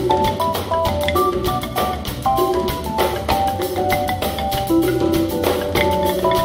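Live band instrumental: a marimba playing quick runs of short notes over drum kit and hand drums, with a steady low bass underneath.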